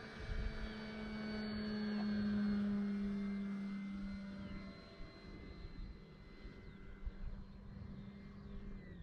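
Electric brushless motor and propeller of an E-flite Carbon-Z Cessna 150T RC plane flying past: a steady hum that grows louder to a peak about two and a half seconds in, then fades away.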